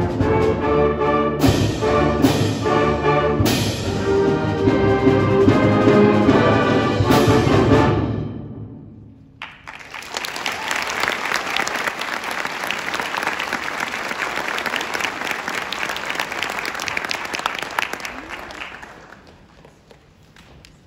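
Student concert band playing the closing bars of a Spanish march, with brass and several sharp accented hits, and cutting off about eight seconds in. Audience applause follows and fades away near the end.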